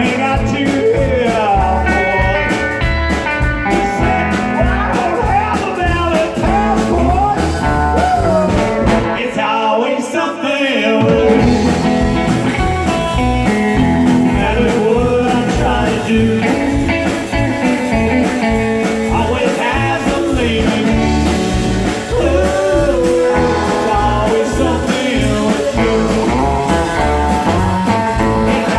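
Live band playing blues-rock with guitar over a steady beat. The low end drops out for about a second and a half around ten seconds in, then comes back.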